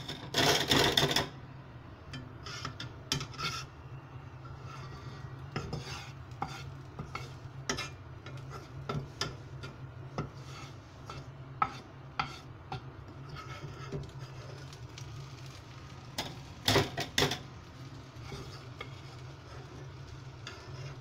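A metal spoon scraping and clinking against a non-stick frying pan as chopped onions are stirred, in short, irregular strokes over a steady low hum. It opens with about a second of loud scraping and has a few sharp clinks near the end.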